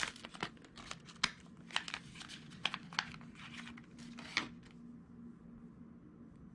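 Plastic packaging of a tube of Loctite being handled and pulled at, with crinkling and a string of sharp crackles and clicks that stop about four and a half seconds in.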